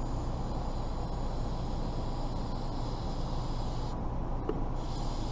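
Aerosol can of Flex Seal rubber sealant spraying onto an RV roof seam with a steady hiss. The hiss stops for under a second about four seconds in, then starts again. A steady low rumble runs underneath.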